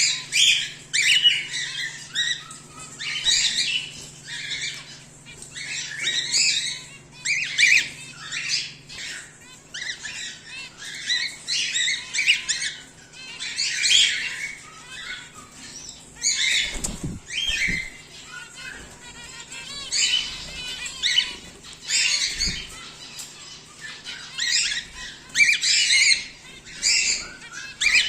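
Cockatiels calling together: constant overlapping squawks and chirps, with a couple of dull thumps about two-thirds of the way through.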